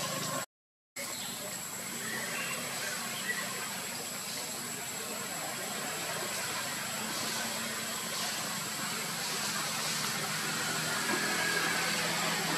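Steady background hiss, cut by a brief drop to silence about half a second in, with a few faint high chirps over it.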